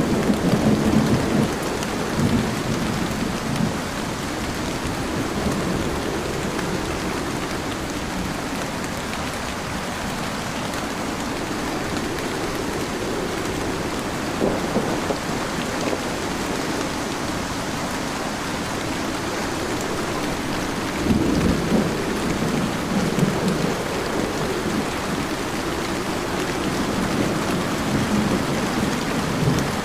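Heavy rain pouring steadily, with low rumbles of thunder swelling near the start, around the middle and again about two-thirds of the way through.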